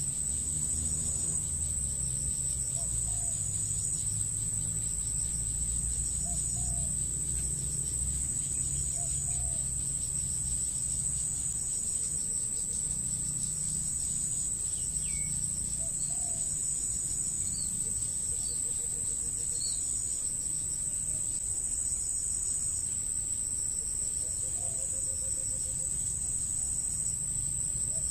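Insects in the trees making a steady high-pitched buzz, with a soft low call every few seconds and a low rumble underneath.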